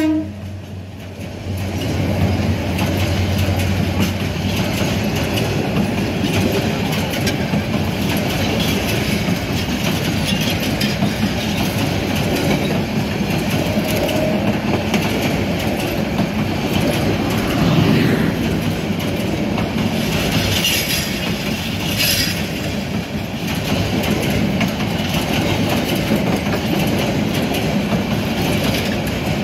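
Tista Express intercity passenger coaches rolling past at close range: a steady rumble with the clickety-clack of wheels over rail joints, and a couple of brief high squeals about twenty seconds in. The locomotive's horn cuts off at the very start.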